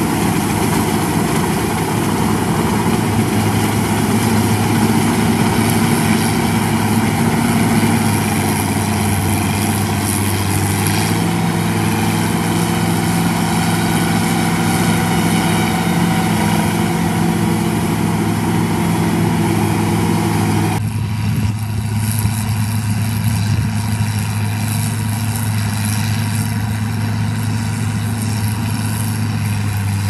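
CLAAS Crop Tiger 30 combine harvester running steadily while it works through a rice crop, its engine and machinery giving a loud, even hum. The tone changes abruptly about two-thirds of the way through.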